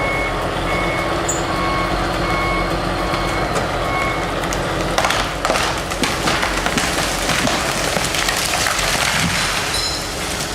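A heavy vehicle's reversing alarm beeps at an even pace over a running engine for about the first four seconds. After that comes a louder, noisier stretch of machine sound.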